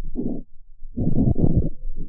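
Wind buffeting the microphone: low, irregular gusty rumbling that drops away briefly near the middle, then returns.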